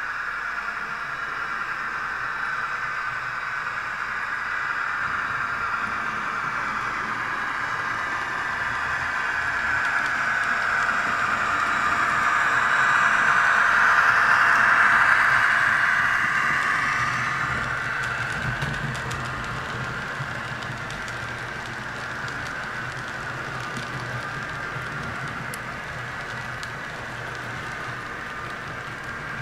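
H0-scale model freight trains running: steady whirring and rolling of small wheels and motors on the track. It swells to its loudest about halfway through as a train of wagons passes close by, then fades back.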